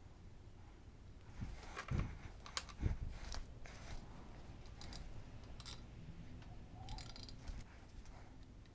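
Scattered clicks, taps and light metallic rattles of hand tools and small engine parts being handled, with two louder knocks about two and three seconds in.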